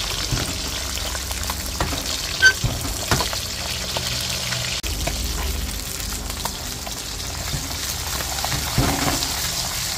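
Marinated daing (split dried fish) frying in hot oil in a wok: a steady sizzle with scattered crackles and spits. One sharp pop comes about two and a half seconds in.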